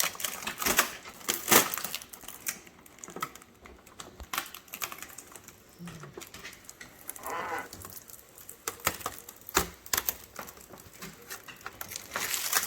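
Scattered sharp clicks and taps, with some crinkling of plastic, as a scale RC truck and its packaging are handled. A brief murmur of a voice comes about seven seconds in.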